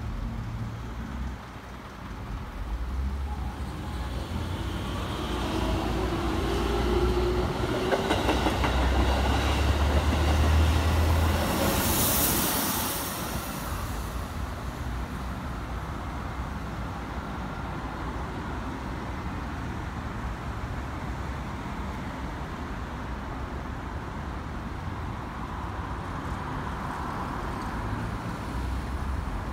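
Keikyu 1000 series electric train accelerating past: a rising motor whine and rail and wheel noise that build to their loudest about 8 to 13 seconds in, then die away to a steady background hum.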